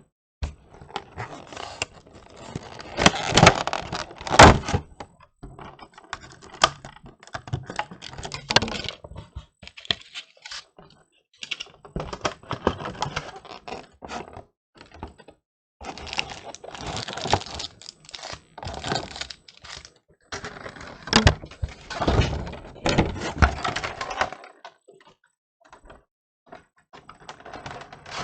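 A trading card collection box being handled and opened: irregular rustling, tapping and clattering in bursts with short pauses between them.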